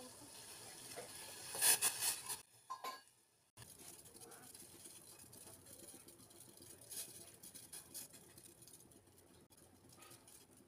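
Tea simmering in a steel saucepan on a gas stove: a steady fine crackle and patter of small bubbles. A few louder sharp clicks come about two seconds in, followed by a brief cut to silence.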